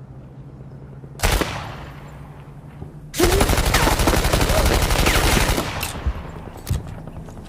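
M1A1 Thompson submachine gun firing: a short burst about a second in, then a long fully automatic burst of about two and a half seconds, followed by a couple of single shots.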